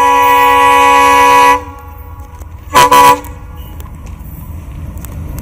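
Diesel locomotive horn of an approaching express train: one long blast that cuts off about a second and a half in, then two short toots close together about three seconds in. A low rumble of the train rises towards the end.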